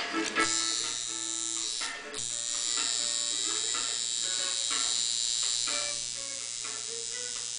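Tattoo machine buzzing steadily as it works ink into the skin, cutting out briefly about two seconds in and then running on. Music plays underneath.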